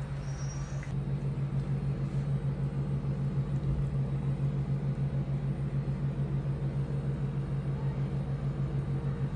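A steady low mechanical hum with a fast, even pulsing.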